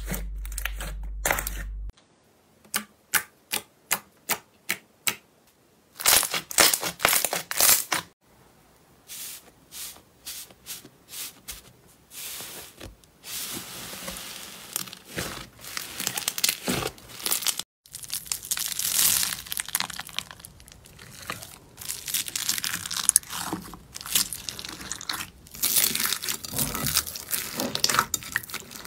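Slime being squeezed and pulled apart in a series of short clips, making crinkling, crackling and tearing sounds. A run of about ten separate sharp clicks comes between two and five seconds in, and denser crackling follows.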